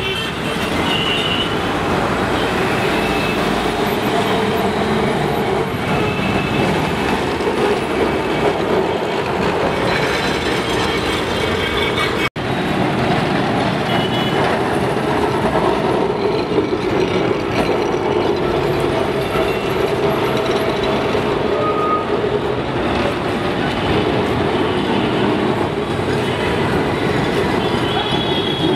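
Kolkata trams running along street-embedded rails, their steel wheels rumbling and clattering on the track, over steady city street traffic. The sound cuts out for an instant about twelve seconds in.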